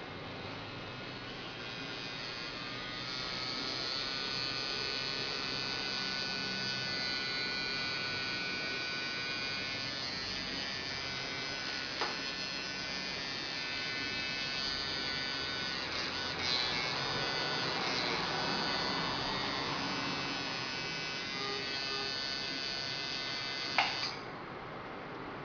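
Rotary tattoo machine's small electric motor running with a steady buzz. A single click sounds about halfway through, and a sharper click near the end comes just before the buzz stops.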